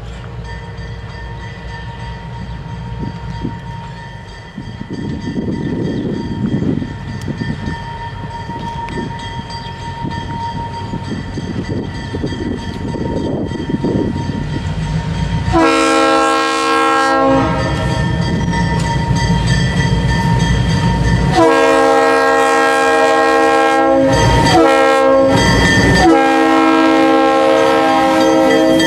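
Low rumble of the moving freight train, then an EMD GP10 diesel locomotive's multi-chime air horn. One long blast comes about halfway through, then after a pause of about four seconds a long, a short and a long blast follow. This is the long-long-short-long pattern that warns of a grade crossing.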